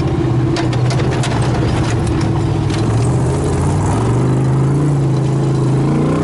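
1975 Toyota FJ40 Land Cruiser's swapped-in Chevy 350 V8 running at low revs off-road. A cluster of sharp clicks and knocks comes in the first three seconds, and the engine's pitch rises over the last two seconds as it picks up revs.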